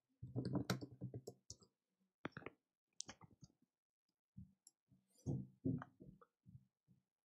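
Computer keyboard typing: a quick run of keystrokes, then a few scattered key clicks and another short run.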